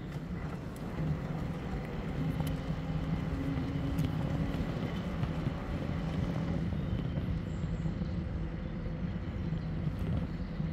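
Steady rumble of riding an e-bike: tyre and wind noise with a steady low hum.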